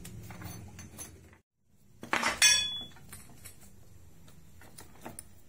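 Steel parts clinking together, with two or three sharp metallic knocks that ring briefly about two seconds in, then a few faint taps.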